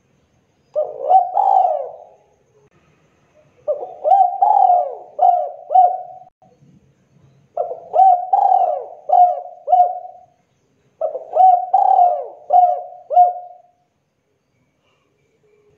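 Spotted dove cooing its song in four separate phrases a few seconds apart. The first phrase is short; each of the others is a run of four or five coos.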